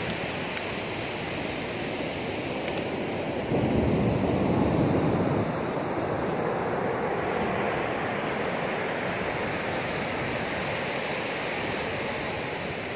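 Ocean surf washing steadily on the beach, with one louder surge of a breaking wave about three and a half seconds in that lasts about two seconds.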